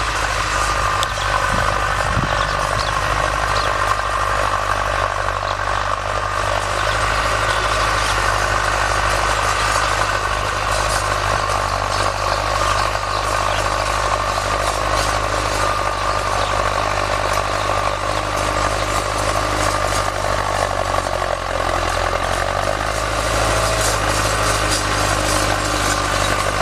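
Diesel tractor engine running steadily under load as it pulls a cultivator through dry soil. Its note dips briefly and comes back up near the end.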